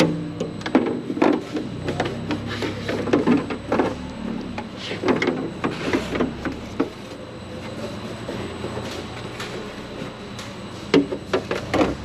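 Irregular knocks and clatter of items being handled and packed, over a steady low hum that fades about halfway through.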